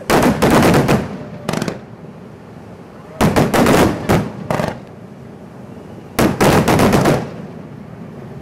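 Fireworks going off in rapid volleys: three bursts of quick, sharp bangs, each lasting about a second and about three seconds apart, with a single bang after each of the first two volleys.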